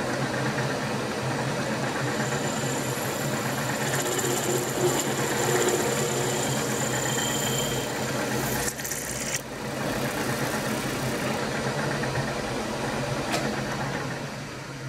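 Machine spindle motor running with a large twist drill cutting through a steel bar: a steady hum under a harsh grinding, chattering cutting noise. It breaks off briefly a little past halfway and fades near the end as the cut finishes.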